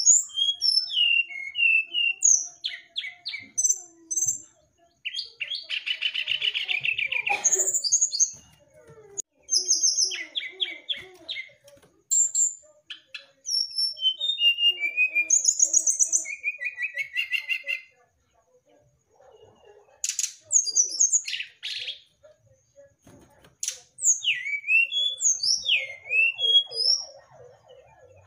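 Brown-chested jungle flycatcher (sikatan rimba dada coklat) singing a varied song of clear whistled notes, quick glides and rapid buzzy trills, in phrases broken by short pauses.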